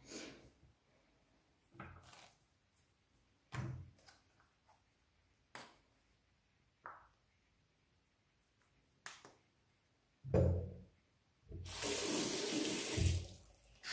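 Small knocks and clicks of toiletries being handled at a bathroom sink, with a louder thump about ten seconds in, then a tap running into the sink for a couple of seconds near the end.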